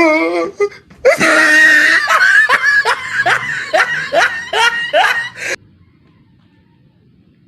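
A person laughing loudly in a run of falling 'ha-ha' bursts, about two a second, stopping about five seconds in.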